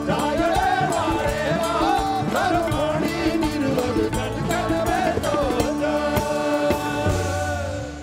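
Live fusion rock band playing: a male voice singing over bass, electric guitar and drums. The song ends with a final chord and cymbal wash about seven seconds in that rings out and fades.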